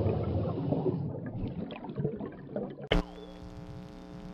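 End-card logo stings: a noisy sound effect that fades over the first two seconds, then a sudden hit about three seconds in that opens into a held chord.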